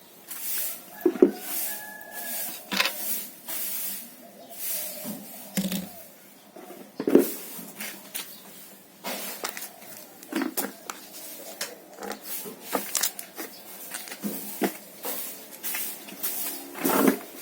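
Irregular knocks, clicks and rustling, as of objects being handled and set down.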